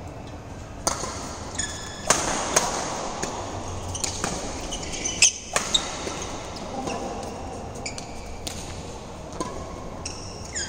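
Badminton rally: sharp cracks of rackets striking the shuttlecock, about one a second, echoing in a large hall, with short high squeaks of shoes on the court mat between strokes.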